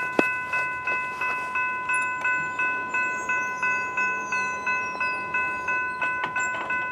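Railroad grade-crossing warning bell ringing in a steady, even beat of about three strikes a second, each strike a bright metallic ring that fades before the next. The crossing is activated for an approaching train while the gate arm lowers.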